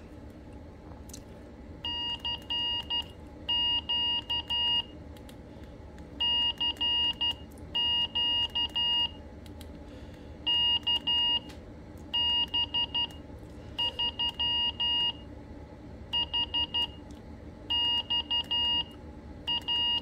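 Morse code sidetone from a Quansheng handheld radio's built-in CW firmware: a single pitched beep keyed on and off in groups of short and long elements as CQ and a callsign are sent with the radio's buttons used as a paddle. Faint clicks of the keys come between the beeps.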